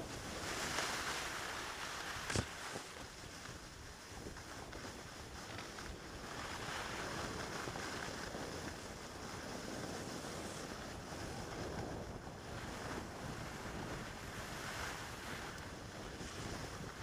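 Wind buffeting the camera microphone, a steady rushing noise that swells and eases, with a single sharp knock about two and a half seconds in.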